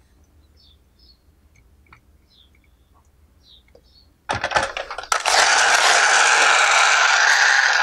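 Faint clicks of plastic toys being moved, then a few louder clatters as a plastic toy truck is picked up, followed by a steady whirring rattle from its wheels and gearing spinning.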